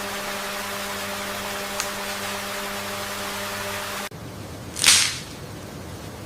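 A steady hum with a hiss over it, which cuts off abruptly about four seconds in; a moment later a single short, loud whoosh.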